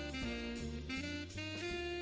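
Background music: an instrumental jazz tune led by saxophone over bass and drums.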